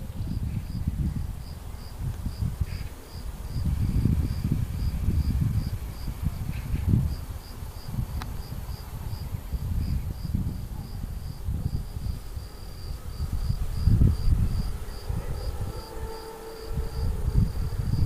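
A cricket chirps steadily, about two to three short chirps a second, over a low, uneven rumble. Near the end, a faint steady hum of an approaching train comes in.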